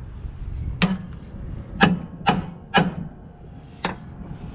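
Five sharp hammer blows, unevenly spaced, on a screwdriver wedged beside a stuck lateral torque rod on a truck's drive axle, driving it in to lever the seized rod free.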